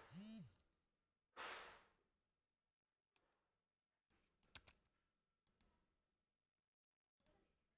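Near silence with a soft breathy sigh about one and a half seconds in and a few faint, scattered clicks.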